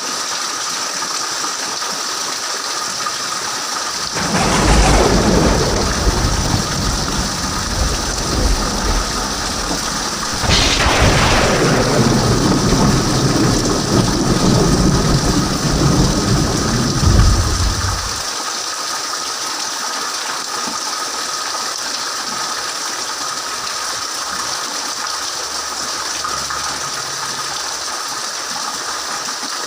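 Steady heavy rain falling, with two claps of thunder, about 4 and 10 seconds in; the second rolls on as a long low rumble for several seconds before dying away.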